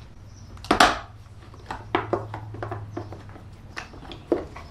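Short clicks and knocks of a tractor's air cleaner housing and filter element being handled as the air filter is changed, with one louder clunk about a second in. A steady low hum runs underneath.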